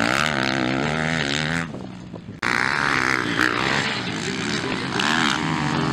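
Motocross bike engines revving up and down as riders work through a dirt-track corner, the pitch rising and falling with the throttle. The sound dips and then comes back abruptly about two and a half seconds in, with more revving bike engines.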